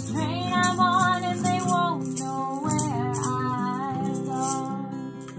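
Acoustic guitar playing under shaken maracas, with a voice holding long sung notes. The music fades toward the end.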